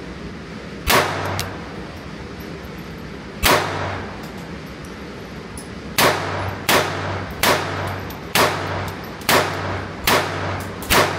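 Pistol shots echoing in an indoor range: two single shots a few seconds apart, then a steady string of about seven shots, a little under a second apart.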